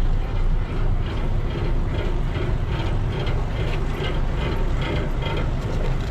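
A riverboat's engine running steadily with a deep rumble, heard on board. Over it comes a rhythmic mechanical clatter of about three ticks a second that stops near the end.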